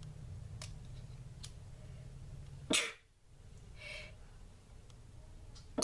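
A person's short breathy sounds: a sharp burst just under three seconds in and a softer breath about a second later, over a low hum that cuts off suddenly at the burst.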